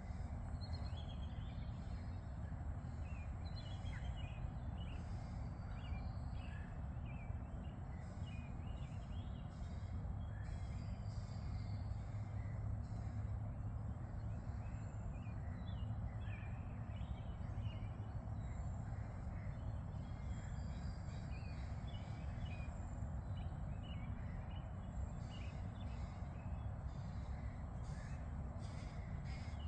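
Many birds calling at the shore before dawn, with short, frequent calls throughout, over a steady low rumble.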